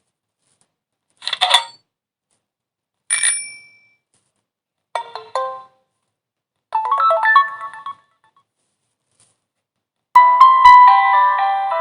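Samsung Wave II (GT-S8530) phone playing its preset alert tones one after another, five short electronic chimes and jingles with a pause between each. The last, starting near the end, is a longer melody.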